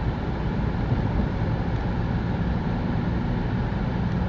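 Steady low rumble of a car driving slowly on a snow-covered road, engine and tyre noise running evenly.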